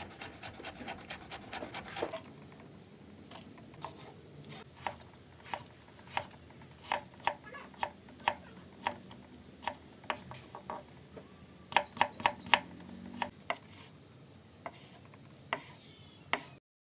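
Chef's knife chopping on a wooden cutting board. For about two seconds it makes fast, even chops through spring onion, about six a second. After that come slower, separate cuts knocking on the board as carrot is sliced into rounds and then a sausage is cut, with the sound cutting off just before the end.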